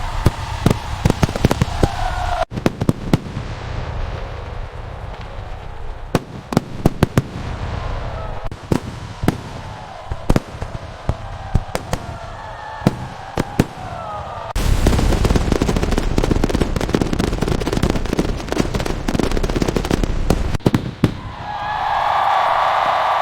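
Fireworks display: many sharp bangs of shells bursting in rapid, irregular runs. About two-thirds of the way in, the bursts become a dense, continuous booming.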